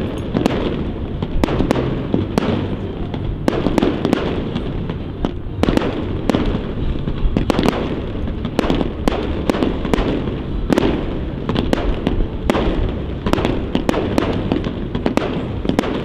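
Fireworks display: shell bursts and bangs follow one another several times a second over a constant low rumble, with no pause.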